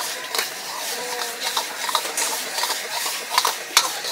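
Metal ladle knocking and scraping against a wok during stir-frying, several sharp clanks over a steady sizzle of food frying in hot oil.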